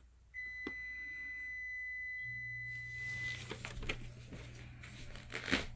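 A steady, high-pitched electronic beep tone held for about three seconds, then stopping, with a few light clicks and a low steady hum that sets in about two seconds in.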